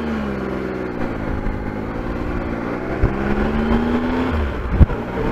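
Triumph Explorer's three-cylinder engine running on the move, heard through a microphone inside the rider's helmet with wind noise: the engine note falls, then climbs again. Two sharp knocks come about three seconds in and just before the end, the second the loudest sound.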